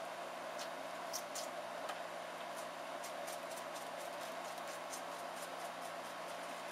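Deer fawn sucking on a baby bottle's nipple: a run of irregular small clicks and smacks, several a second, over a steady background hum.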